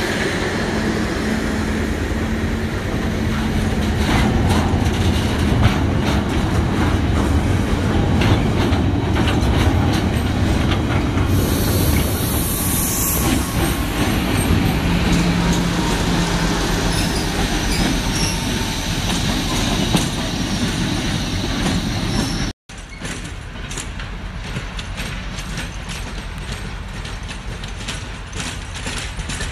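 Class 56 diesel locomotive, with its Ruston 16-cylinder engine, running loudly as it hauls a railhead treatment train past, wheels clicking over the rail joints and a brief hiss about twelve seconds in. About two-thirds of the way through the sound cuts and comes back quieter as the train moves away.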